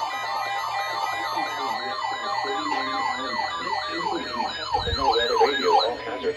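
Electronic siren-like wail over a held synthesizer chord. The wavering tone swings wider and wider in pitch, a low thump hits about five seconds in, and the sound cuts off about a second later.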